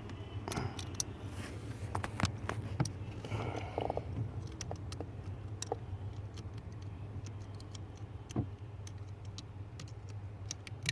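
Scattered light clicks and small rattles of hands handling wiring and plugging a connector in, over a steady low hum.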